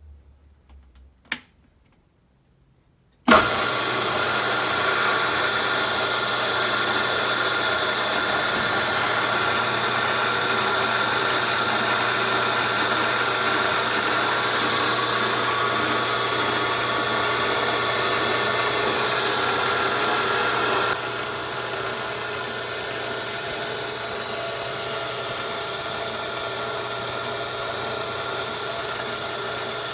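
Milling machine running steadily while a reamer bores out a valve guide, a sustained mechanical hum with several steady tones. It starts suddenly about three seconds in, after near silence broken by a single click, and steps down in loudness about two-thirds of the way through.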